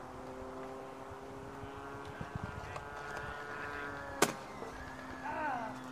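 A steady mechanical hum made of several held tones, with one sharp click about four seconds in.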